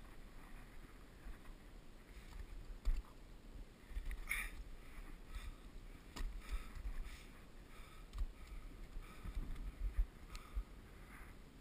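A climber's footsteps crunching in snow and scraping on rock, with scattered sharp clicks and a louder crunch about four seconds in. A low, uneven buffeting sits on the camera microphone throughout.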